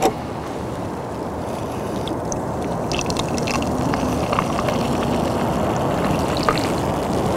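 Pepsi poured from a plastic bottle into a ceramic mug from about three seconds in, over a steady low background rumble.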